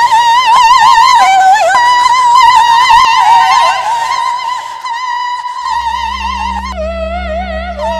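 A woman singing high, held operatic-style notes with a wide vibrato, gliding between pitches. Late on, a low steady synth drone comes in under her, and the voice drops to a lower held note.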